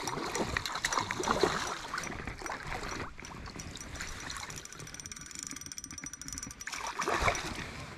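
Hooked trout thrashing at the surface and a landing net dipped into shallow water: irregular splashing, sloshing and dripping, with a louder splash about seven seconds in.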